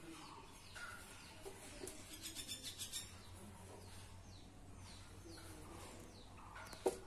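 Marker writing on a whiteboard, a quick run of scratchy strokes about two seconds in, while birds chirp faintly with short falling calls. A single sharp tap just before the end is the loudest sound.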